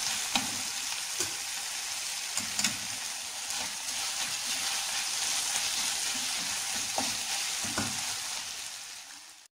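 Chopped tomato and onion sizzling in oil in a non-stick kadai, just after the tomato goes in to sauté, while a wooden spatula stirs and scrapes through them with a few light knocks against the pan. The sizzle fades away near the end.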